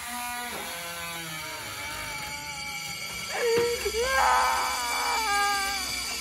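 Eerie horror-film soundtrack: wailing, cry-like tones that glide and waver over a steady high drone, swelling louder about three seconds in.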